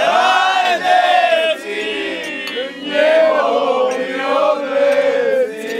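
A group of men singing together loudly in chorus, holding long notes.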